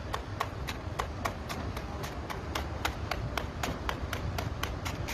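A run of sharp clicks or taps, about three or four a second and slightly uneven, over a steady low rumble from an outdoor phone recording.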